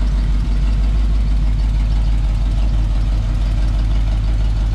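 1939 Dodge tow truck's engine idling steadily.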